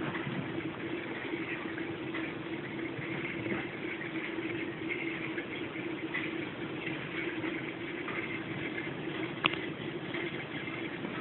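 Aquarium pump running, with water bubbling steadily over a constant low hum. One sharp click about nine and a half seconds in.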